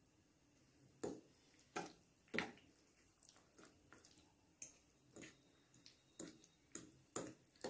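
Spoon mixing thick curd into mashed roasted eggplant in a glass bowl: faint, irregular wet squelching strokes, roughly two a second, starting about a second in.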